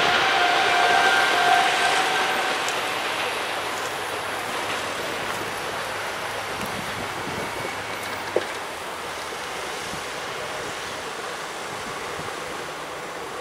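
Level-crossing barrier booms lifting, with a steady whine from the JEGD-50 barrier drives for the first two seconds or so, over wind and road-traffic noise that eases off as cars begin crossing the tracks. A single sharp knock sounds about eight seconds in.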